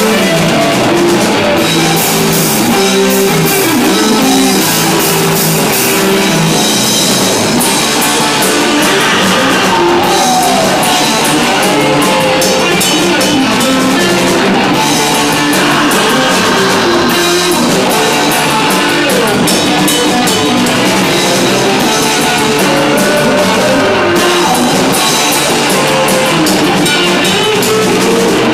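Live rock band playing loudly, with a drum kit keeping a steady beat under guitar.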